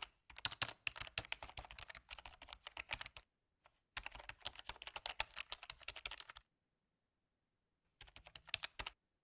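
Keyboard typing sound effect: rapid keystroke clicks in three runs, matching text being typed out on screen. The first run lasts about three seconds, a second of about two and a half seconds follows a short pause, and a brief burst comes near the end.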